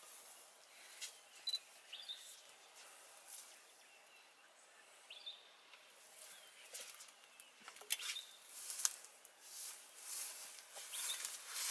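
Quiet outdoor bush ambience with a few short, high bird chirps and scattered sharp rustles and snaps, the loudest about eight and nine seconds in.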